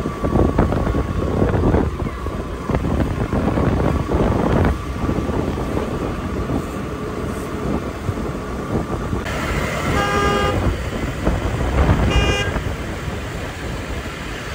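Wind and road noise from riding on a motor scooter, with a horn tooting twice, briefly, in the latter part.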